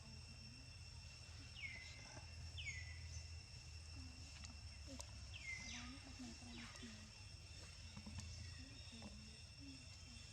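Faint outdoor background: a steady high-pitched insect drone, a few short chirps falling in pitch in the first half, and faint low voices.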